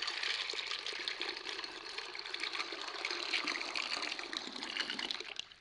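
A thin stream of water pouring into a glass bowl of dried yellow peas, filling it; the pouring fades out near the end.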